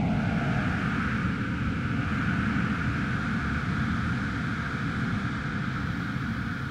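Steady rushing noise with a deep rumble under it, slowly getting quieter toward the end.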